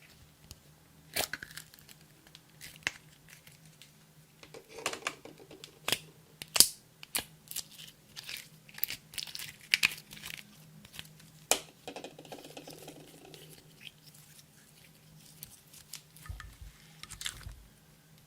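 Clear slime being worked by hand, giving irregular sticky pops, snaps and crackles at uneven intervals.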